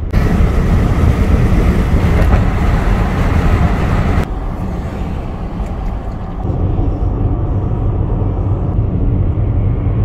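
Road noise heard from inside a moving car: a steady low rumble of tyres and engine, which turns duller about four seconds in.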